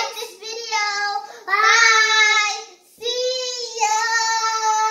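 A child singing without accompaniment, in three long held notes with short breaks between them.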